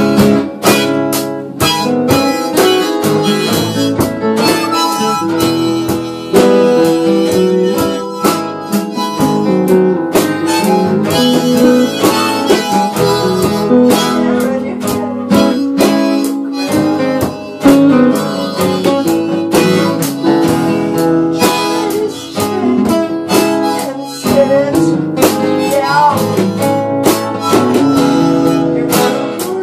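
A live band playing: a harmonica played into a hand-held microphone takes the lead over guitars and a drum kit.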